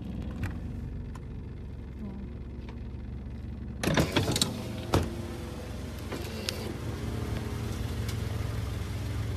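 Car engine idling steadily, with a quick cluster of loud knocks about four seconds in and one more knock about a second later.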